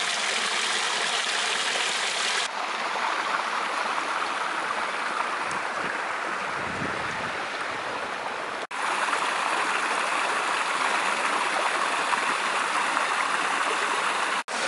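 Steady rush of a small hillside stream tumbling over a little cascade, with abrupt changes and brief dropouts where shots are joined, about two and a half, nine and fourteen seconds in.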